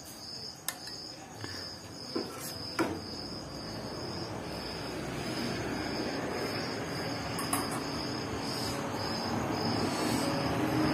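Insect chirping in a steady, evenly pulsing rhythm, with a few sharp clinks of a metal spatula against a steel pan in the first three seconds. A broad rumbling noise builds and grows steadily louder through the second half.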